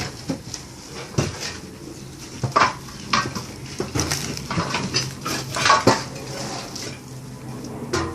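Irregular metallic clinks and clatters, like metal things knocking together as they are handled, with short ringing after the louder knocks.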